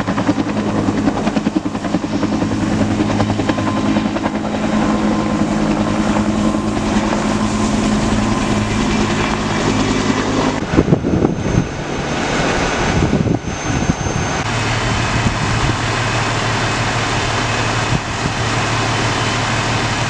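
Helicopter flying over, a steady turbine and rotor sound that fills the first half. After a rough, noisy stretch around the middle, a steadier low engine hum carries on to the end.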